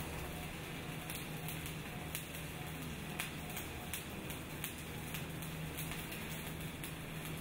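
Welding arc crackling and sizzling steadily, with sharp pops every second or so, over a steady low hum.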